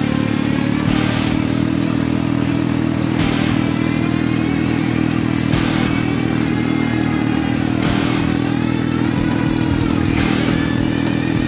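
ATV engine running steadily while riding, with a rushing noise that swells about every two seconds.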